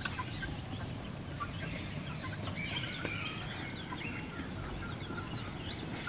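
Domestic hens clucking softly with scattered short calls as they feed on grain.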